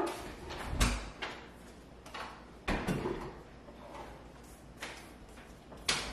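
A kitchen pantry door being opened and shut, with a handful of separate knocks and clicks spread through, the strongest near the start and about a second in.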